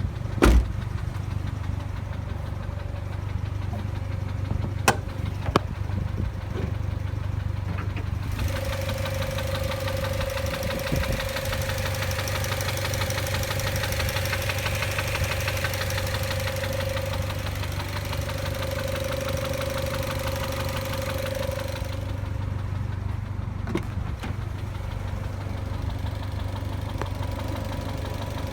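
2006 Mazda Miata (NC) four-cylinder engine idling with a knocking rattle, which the owner suspects is the variable valve timing (VVT) actuator. A brighter, faster rattle with a steady whine comes in about eight seconds in and stops some fourteen seconds later.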